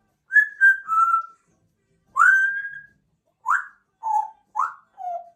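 African grey parrot whistling a phrase of clear notes: a few short notes, one longer held note about two seconds in, then short upswept notes alternating with lower, falling ones.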